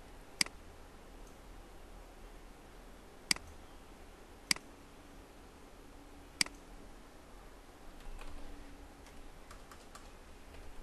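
Computer mouse clicking: four sharp single clicks spaced one to three seconds apart, then a few quick, lighter keyboard keystrokes near the end.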